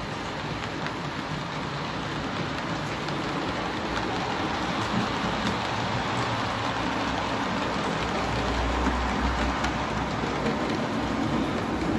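Model trains running on a model railway layout: a steady rushing rattle of small wheels rolling on track, with faint scattered clicks. It grows a little louder, with a low rumble, about eight seconds in as a train passes close by.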